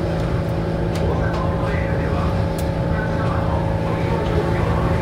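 Osaka Monorail 2000-series train running at a steady speed, heard from inside the car: constant hum from the Hitachi IGBT inverter and traction motors over the rubber tyres rolling on the track beam, with a few light clicks.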